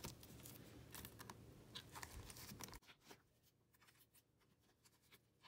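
Faint rustling and soft ticks of photocards being slid into the plastic pocket sleeves of a binder page. The sound fades to near silence after about three seconds.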